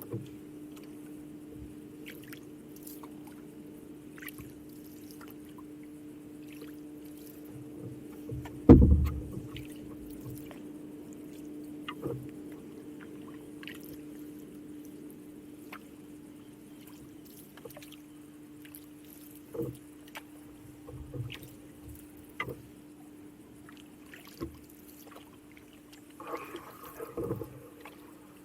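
Canoe on the water, with quiet water sounds, small knocks and drips from paddling and a steady low hum underneath. About nine seconds in there is one loud hollow knock, and another cluster of knocks comes near the end.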